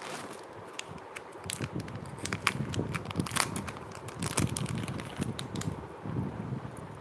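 Plastic jewellery packets crinkling with a run of sharp crackles and clicks as they are handled, busiest in the middle of the stretch.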